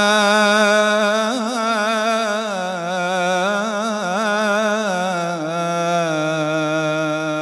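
A man's solo unaccompanied voice chanting an Arabic ebtehal (devotional invocation), holding one long melismatic note whose pitch wavers in rapid ornaments.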